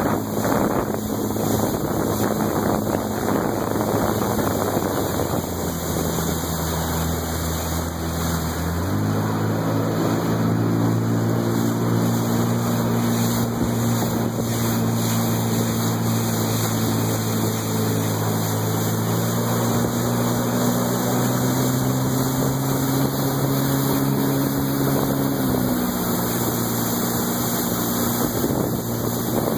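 Personal watercraft engine running underway with wind noise on the microphone. The engine pitch climbs about nine seconds in as it speeds up, holds steady, then drops back near the end.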